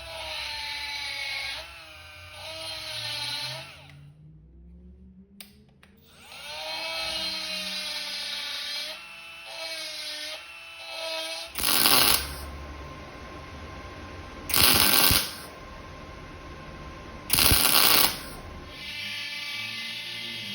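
Die grinder whining as it grinds down weld piled in the corners of a steel plate, its pitch wavering under load. It stops about four seconds in and spins back up with a rising pitch. In the second half come three loud, short bursts of noise about three seconds apart.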